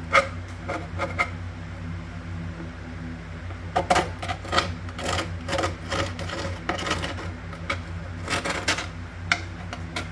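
A metal hand tool scraping old plumber's putty from around a sink drain opening: irregular scrapes and sharp clicks, in quick clusters.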